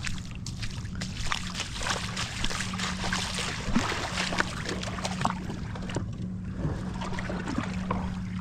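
Shallow water splashing and sloshing around a Waverunner personal watercraft as it is waded out and floated off the sand, with many short splashes over a steady low hum.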